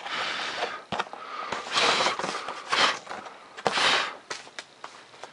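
A hand sweeping and wiping over a foam-board model jet covered in clear packing tape, brushing off hair and debris: about four swishing strokes with a few light knocks between them.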